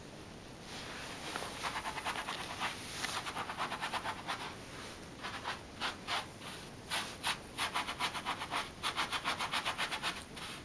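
Miniature schnauzer puppy attacking a slipper: rapid scratching and scuffling, several quick strokes a second, starting about a second in with a couple of short pauses.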